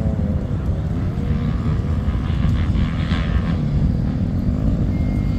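Motocross dirt bike engines running and revving on the track, one of them coming nearer about two to three seconds in.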